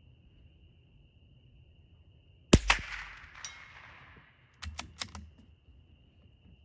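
A single shot from a Ruger American Rimfire LRT .22 LR bolt-action rifle about two and a half seconds in, with a sharp crack and an echo that fades over a second or so, and a faint ring about a second after the shot. About two seconds later the bolt is worked, four quick metallic clicks. Crickets chirp steadily in the background.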